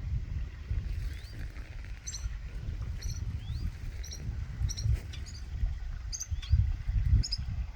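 Small birds chirping: short high chirps about once a second and a few short rising whistled notes, over a steady low rumbling noise that swells twice near the end.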